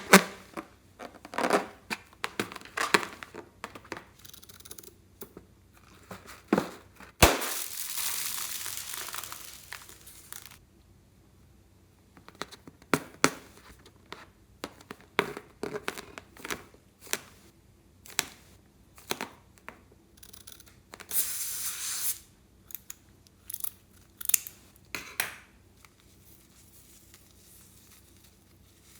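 Hands working slime and its craft materials close up: scattered crinkles, clicks and tearing sounds, with two longer stretches of tearing noise, one about seven seconds in lasting some three seconds and a shorter one about twenty-one seconds in.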